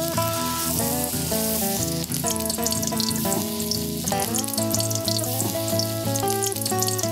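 Battered vegetables deep-frying in hot oil in a pan: a steady sizzle with fine crackling, under background music.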